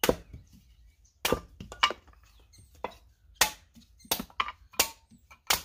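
Hatchet splitting thin sticks of kindling on a wooden chopping stump: about eight sharp chops, irregularly spaced, roughly one every half second to a second.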